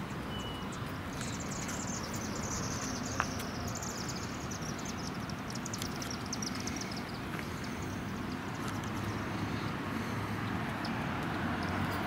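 Outdoor street ambience: a steady background of traffic noise, with a high, fast trill falling slowly in pitch over several seconds and one sharp click about three seconds in.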